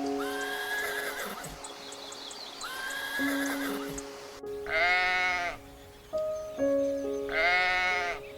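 Two loud wavering bleats from a farm animal, about two and a half seconds apart, over background music with held notes.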